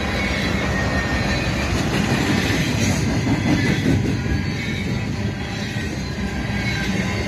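Double-stack intermodal freight train's well cars rolling past at close range: a steady rumble and clatter of steel wheels on the rails, a little louder about three to four seconds in.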